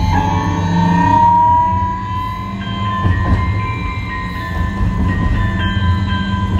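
Hiroden 5100-series low-floor tram car 5108 running, heard from inside the car. Its VVVF inverter and traction motor whine rises in pitch through the first second or so as the tram accelerates, then levels off into a steady whine over the low rumble of the wheels on the rails.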